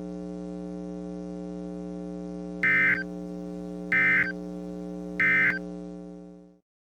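A steady electrical hum runs under the weather-radio feed. Three short, shrill digital data bursts sound about 1.25 s apart: the EAS end-of-message code that closes the alert. The hum then fades out quickly near the end.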